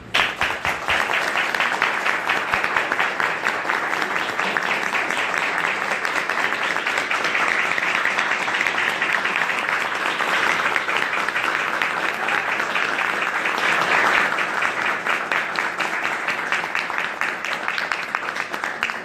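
Applause from a small group of people, dense and steady, starting suddenly and stopping sharply.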